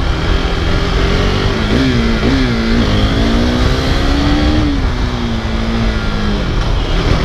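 KTM RC sport bike's single-cylinder engine running under way, its note wavering with the throttle and then holding steady before dropping away near the end, over a constant low rumble of wind on the helmet camera.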